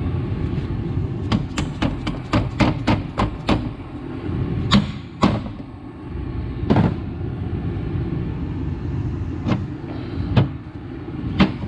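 Hand hammer striking the metal front wheel hub of a John Deere 6400 tractor. A quick run of about eight sharp taps comes about a second in, followed by single blows a second or more apart, over a steady low rumble.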